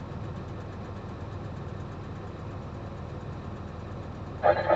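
Dump truck's diesel engine running steadily at low revs. A louder, noisier sound cuts in near the end.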